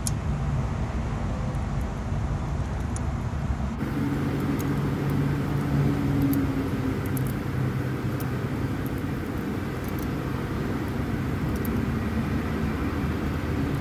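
Steady low mechanical hum of workshop background noise, with a few faint light clicks as new rocker arms are set by hand onto the valves and lash adjusters of the Jeep 3.6 V6 cylinder head.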